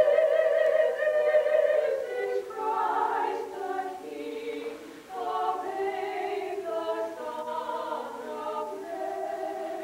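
Three voices, a woman's, a girl's and a boy's, singing together unaccompanied from songbooks, with a short break between phrases about halfway through.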